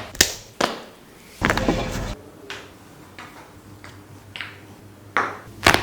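Massage cracking sounds: a string of about eight sharp cracks and pops, irregularly spaced, from fingers, skin and joints being cracked by hand. One longer, rougher crunch comes about a second and a half in.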